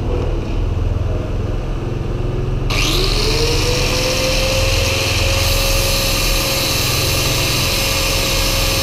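Corded electric disc grinder spinning up about three seconds in, its whine rising quickly and then holding steady with a harsh hiss as it grinds. It is thinning a valve-clearance shim.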